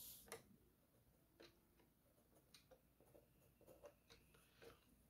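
Near silence, with a few faint scratches and taps of a pen and a plastic set square on drawing paper; the loudest is a short tap just after the start.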